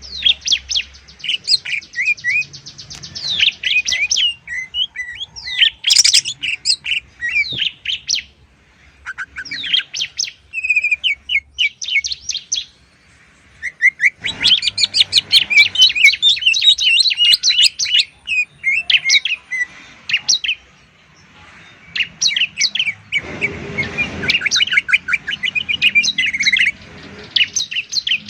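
Cucak ijo (green leafbird) and ciblek (bar-winged prinia) song in long runs of fast, high chirps and trills, broken by short pauses. This is tutor song for caged songbirds. A brief rush of noise comes about two-thirds of the way through.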